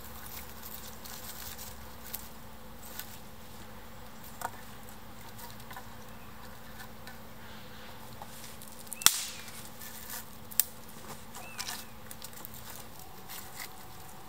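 Small dry branches and twigs clicking, knocking and snapping as they are pushed and wedged into a wooden pole shelter frame. There are scattered sharp cracks, the loudest about nine seconds in and another a second and a half later, over a faint steady buzz.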